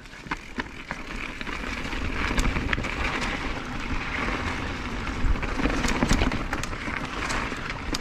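A 2022 Nukeproof Dissent Comp downhill mountain bike running fast down a dirt and rock trail. Tyres rush over the ground with wind rumbling on the helmet or chest camera, and the chain and frame clatter with many sharp clicks and knocks over the bumps. It gets louder over the first couple of seconds as speed builds.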